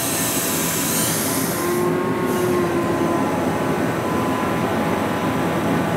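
Steady running noise from a drill rig's machinery, with a faint thin whine coming in about two seconds in.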